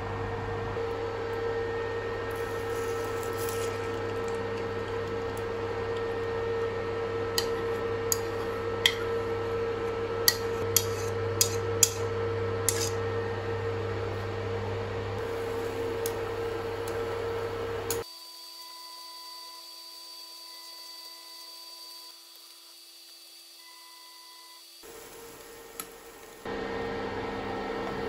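Steady hum of an induction hob running, with a constant tone over a low drone and a series of sharp clicks or taps about halfway through. The hum drops out abruptly for several seconds to a quieter, different tone before returning near the end.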